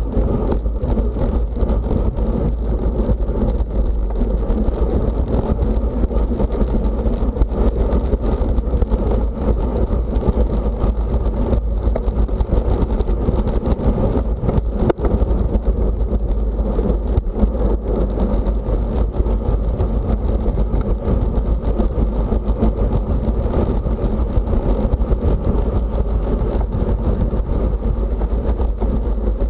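Steady wind rush and rolling noise on the microphone of a camera carried with a bicycle in a road race, unbroken and heaviest in the low rumble.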